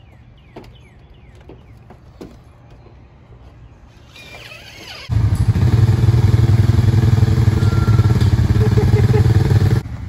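Faint outdoor ambience with a few small chirps and clicks, then, about five seconds in, an abrupt cut to a loud four-wheeler ATV engine running steadily with a low, pulsing note while riding through a culvert pipe.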